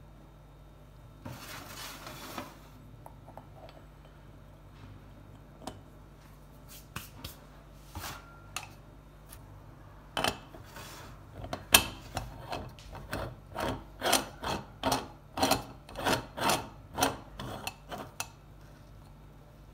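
Bialetti New Brikka moka pot being screwed together: the aluminium upper chamber grates on the base's threads in short repeated twists, about two a second, as it is tightened to seal, with one sharp click among them. Before that come a brief scrape and a few light metal clicks as the parts are handled.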